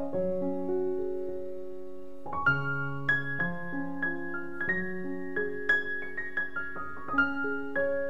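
Background solo piano music: a slow, gentle piece of held chords, then single notes struck one after another and left to ring.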